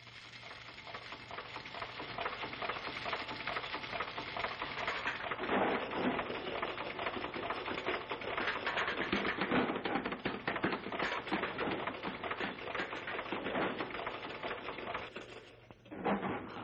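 Cartoon factory-machinery sound effect: dense, rapid clattering and rattling that runs steadily and stops about a second before the end, followed by a couple of separate knocks.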